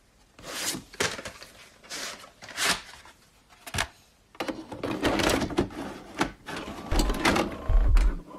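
A run of short mechanical clatters and rustles, a handful of separate ones at first, then busier and continuous from about halfway, with deep thumps near the end.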